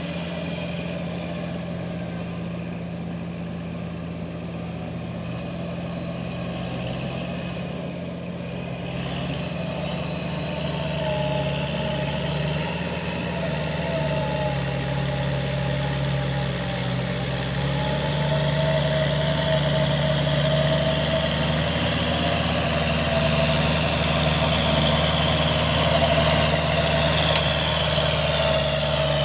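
Kubota diesel farm tractor engine running steadily as the tractor pulls a rotary tiller through a flooded rice paddy, growing louder about a third of the way in as it comes closer.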